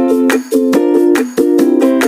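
Background music: a bright plucked-string tune, ukulele-like, with quick repeating notes in a steady rhythm.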